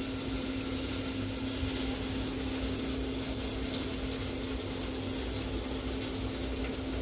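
A steady low hum over a faint even hiss, unchanging throughout: background room tone with no distinct event.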